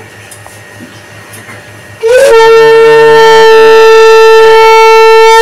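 A conch shell (shankha) blown in one long, steady, loud note. It starts about two seconds in with a short upward swell and holds to the end.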